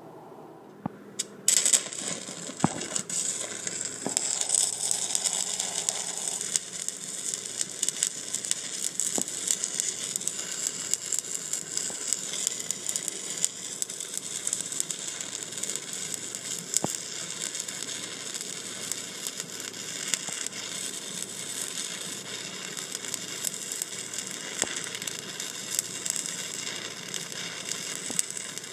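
Stick welding arc crackling steadily as a 1/8-inch 7018 electrode at about 120 amps runs a vertical-up fillet weld; the arc is struck about a second and a half in.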